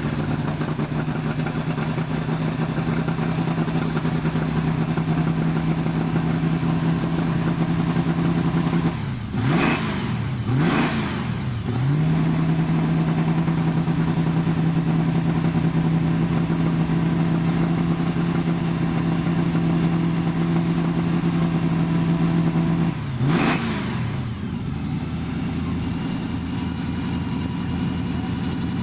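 Off-road race truck's engine running at a steady high speed. The throttle is lifted and reapplied three times, about nine, ten and a half and twenty-three seconds in, the pitch dropping and climbing back each time.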